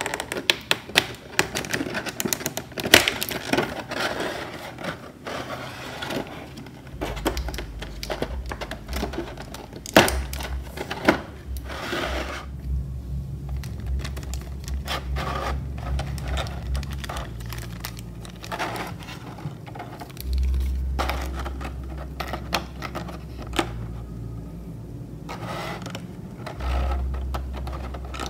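Clear plastic blister packaging being handled: the rigid tray and the bag around the figure crinkle and click, with rapid sharp clicks through the first dozen seconds and sparser rustling after. A low rumble comes and goes beneath it.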